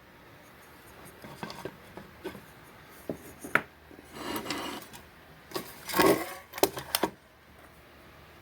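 Small parts of a home-made filament stand being handled and fitted, a spacer pushed into its hole: scattered light clicks and knocks with rubbing, scraping sounds, the loudest scrape about six seconds in.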